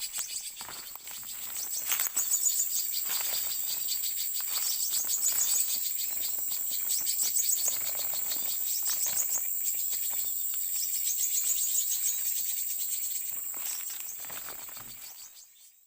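Forest insects, crickets or cicadas, buzzing steadily and high-pitched, with rapid chirping mixed in; it fades out at the end.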